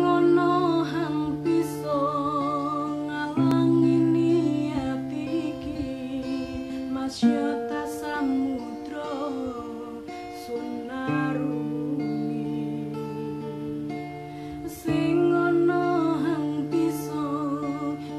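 A woman singing with vibrato to her own acoustic guitar accompaniment, the guitar chords changing about every four seconds.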